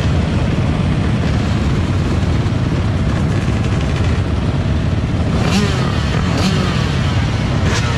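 Several dirt bike engines running together, a steady rumble with riders blipping the throttle into short revs in the second half.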